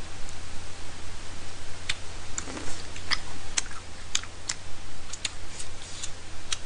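Close-miked chewing of chewy tteokbokki rice cakes with the mouth closed: scattered sharp, wet mouth clicks at an irregular pace, over a steady low electrical hum.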